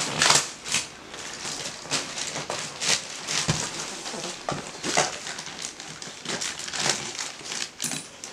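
Plastic courier mailer bag crinkling and rustling in a run of irregular crackles as it is pulled and torn open by hand.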